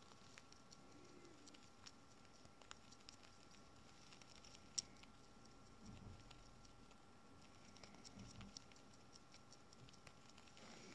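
Near silence, with faint scattered ticks and rustles from a small rodent shifting about in a cupped hand against fabric. There is one sharper click near the middle and a few low rubbing bumps of handling after it.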